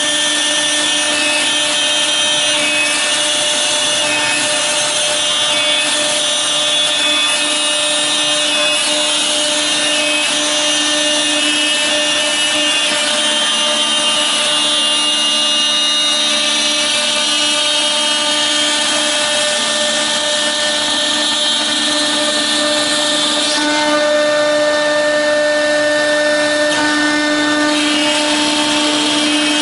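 CNC router spindle running with a steady high whine as its end mill cuts a thick clear acrylic sheet, the cutting hiss over several held tones. The tone mix shifts a little about three quarters of the way through.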